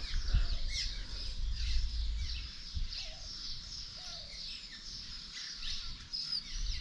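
Many small birds chirping and twittering in quick, overlapping calls, over a steady low rumble.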